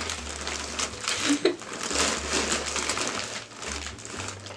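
Plastic poly mailer bags rustling and crinkling as they are picked up and shifted in the arms, in uneven bursts.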